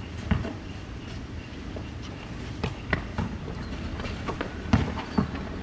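Sounds of an outdoor basketball game: scattered sharp thuds of the ball bouncing and players' feet landing on the concrete court, the two loudest a little before the end, over a steady low rumble.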